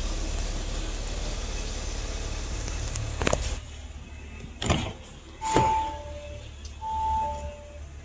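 2018 Audi RS5 driver's door being opened: three sharp clicks of the handle and latch, the first two about a second and a half apart. About halfway through, the car's electronic door-open warning chime begins, two tones alternating high and low and repeating. A steady hum and hiss stops about three and a half seconds in.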